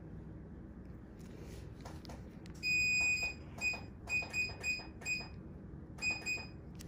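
Electronic beeping: one high beep held for about half a second, then eight short beeps in an uneven run, the last two close together near the end.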